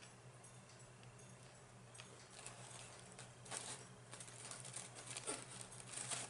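Close-miked eating sounds: a run of small wet clicks and crackles of chewing starting about two seconds in, over a low steady hum.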